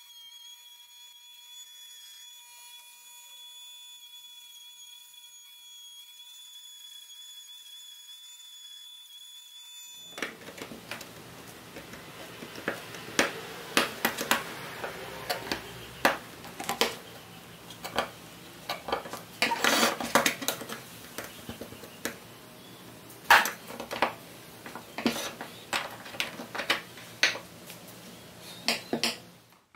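Rotary tool whining at a steady pitch as its small bit grinds at a joint on a pressed-steel toy truck. About ten seconds in, the whine stops abruptly. It gives way to a long run of sharp metal clicks, clinks and scrapes as the truck's sheet-metal tabs are pried and its parts come apart.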